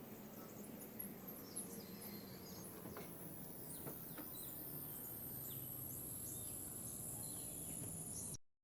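Outdoor ambience: a steady, very high insect drone with many short, falling chirps and a few faint clicks over it. It cuts off suddenly near the end.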